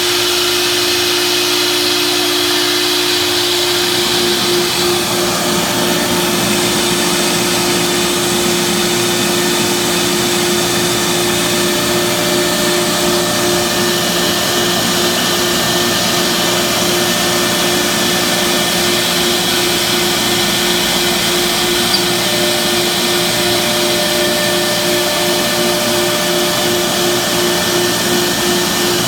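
CNC cutting machine running a cut: its spindle gives a steady hum over a continuous rushing noise, with a fainter higher tone joining about two-thirds of the way in.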